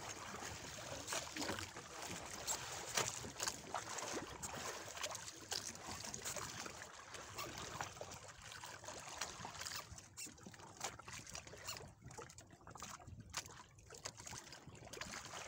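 Faint water lapping and trickling against the hull of a small fishing boat at sea, with irregular small splashes that thin out in the last few seconds.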